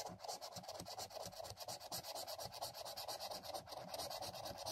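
A lottery scratchcard's coating being scratched off with rapid, even back-and-forth strokes.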